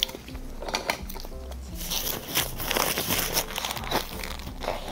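Crinkling and crackling as a soft cake is pulled from its aluminium foil cup and handled, with eating sounds as it is bitten, over soft background music.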